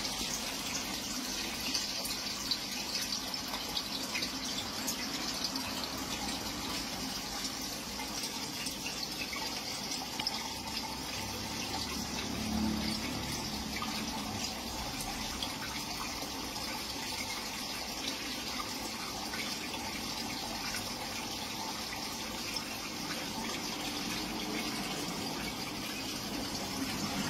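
Steady bubbling and splashing of water from an aquarium's aeration.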